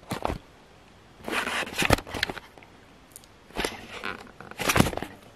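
Camera handling noise: rustling and scraping in about four bursts, with a few sharp knocks, as the camera is moved about.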